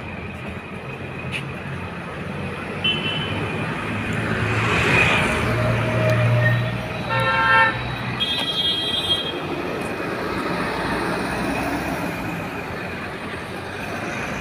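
Busy road traffic: a steady rumble of engines and tyres, with vehicle horns honking in short blasts about three seconds in and again around seven to nine seconds in.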